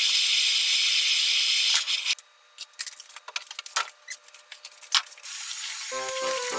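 Kitchen tap running into a stainless-steel sink, shut off about two seconds in, followed by scattered clicks and knocks of a cup and other items being handled at the sink. Background music comes in near the end.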